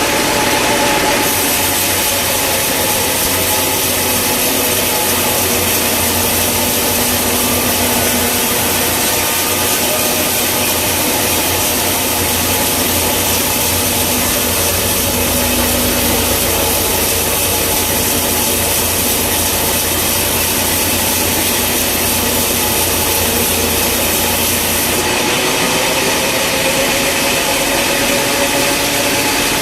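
Sawmill saw cutting through a log over a steadily running engine; the cutting starts about a second in and stops a few seconds before the end.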